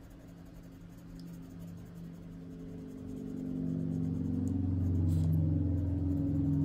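Coloured pencil rubbing on paper in light strokes, under a low, steady droning hum that grows louder from about three seconds in.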